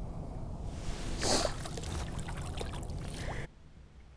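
Water splashing and sloshing at the side of a small boat as a hooked sauger is reeled to the surface, with one louder splash a little over a second in. The sound drops off suddenly near the end.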